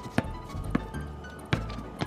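Background music with a heavy bass line and sharp hits, about three in two seconds.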